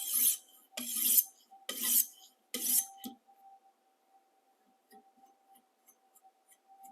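250-grit sharpening stone stroked along the edge of a Blue Diamond chef knife, four rasping strokes a little under a second apart, stopping about three seconds in. The sound marks the burr being cut through and gone.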